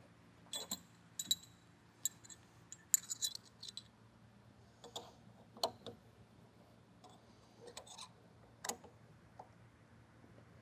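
Spanner wrenches clinking against the seamer's steel shaft and chuck tooling as the chuck is tightened on: faint, irregular metallic clicks and taps, a few ringing briefly, most of them in the first four seconds and a sharper one near nine seconds.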